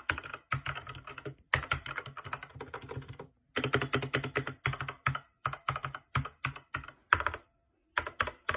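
Rapid typing on a RedDragon K552 mechanical keyboard with red linear switches: fast bursts of key clacks with short pauses between them.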